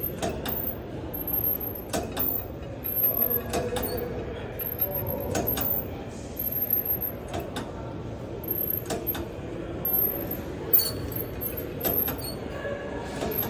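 Cable machine in use during single-arm cable lateral raises: irregular clicks and metallic clinks from the weight stack and pulley over steady background noise, with a louder clank near the end.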